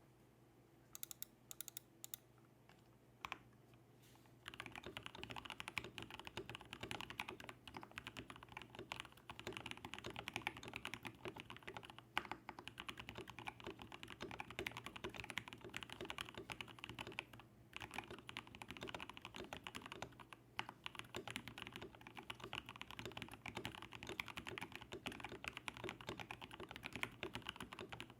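Typing on a KBD67 Lite R2 mechanical keyboard with an FR4 plate, a switch pad and lubed KS-3 Gateron Yellow linear switches. A few separate keystrokes come first, then about four seconds in it turns to steady, fast typing.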